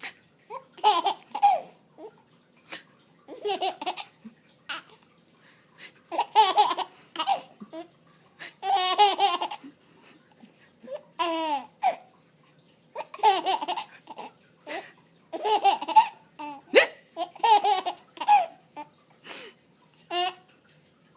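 A baby of about four and a half months laughing in repeated short bursts, with brief pauses between them.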